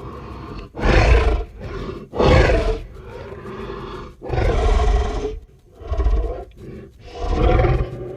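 Film sound effect of a hadrosaur, a duck-billed dinosaur: a run of about five loud, deep roaring calls of half a second to a second each, with quieter low calls between them.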